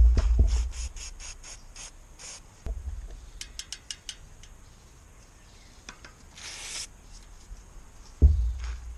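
Bicycle rear freehub ticking in runs of quick clicks as its body is turned and wiped with a rag during cleaning. A short spray hiss comes about six and a half seconds in, and a few low thumps come from the wheel being handled.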